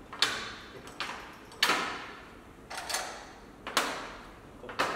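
Go stones clacking onto a large magnetic demonstration board as they are placed one by one, about five sharp knocks roughly a second apart, each ringing briefly.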